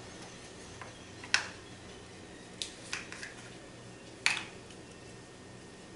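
Plastic caps of small spice jars of dried dill weed and dill seed being worked open and the jars handled: a handful of short, sharp clicks and taps, the two loudest about a second and a half and four seconds in, over a low steady hum.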